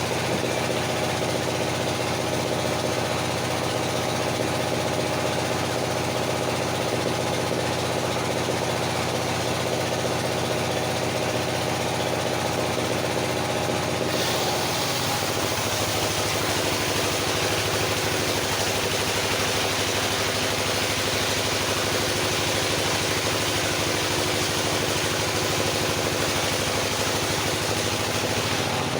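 Engine-driven circular saw running steadily. About halfway through, the engine note drops and a loud hiss rises as the blade cuts into wood under load.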